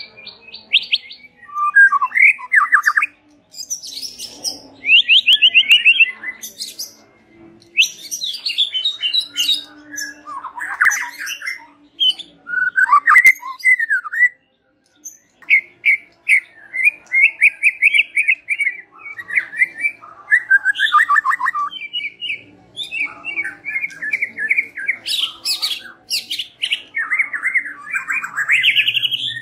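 White-rumped shama singing: a long, varied song of loud whistled phrases and rapid trills, with a short break about halfway through.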